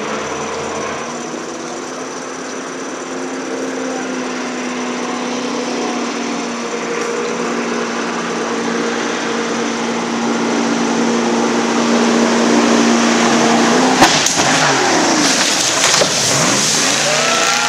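Jet boat engine droning at a steady pitch and growing louder as it approaches. About fourteen seconds in comes a sharp bang, then the engine's pitch swoops up and down over a hiss of rushing white water.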